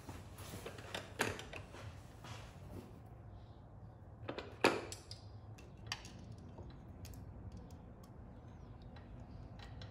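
Scattered small metallic clicks and knocks of fingers and a screw handling the valve adjuster through the open tappet inspection port of a Royal Enfield Himalayan engine, with one sharper knock about halfway through, over a faint low hum.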